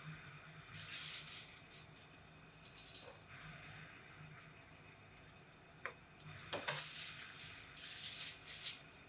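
Four short bursts of dry rattling during cooking, over a low steady hum.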